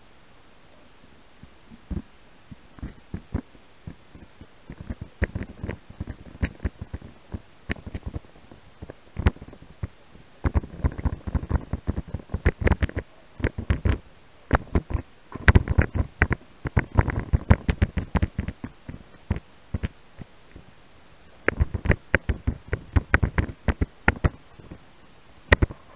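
Irregular clicks, knocks and dull thumps picked up underwater through a camera housing mounted on a speargun: handling noise from the gun and diver. They are sparse at first, thicken into a dense crackling run in the middle, and come in another cluster near the end.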